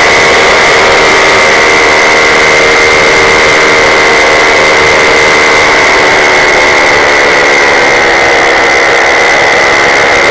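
Paramotor engine and propeller running steadily at cruise in flight, heard loud and close from the pilot's harness: an even engine drone with a strong steady high-pitched whine above it.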